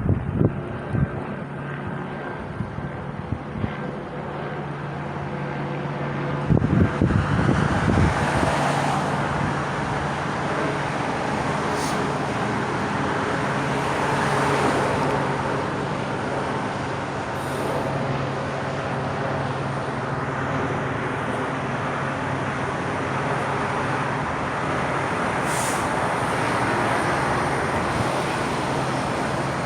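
Steady motor-vehicle noise: an engine running with a constant low hum under a rushing traffic-like noise that grows louder about six seconds in.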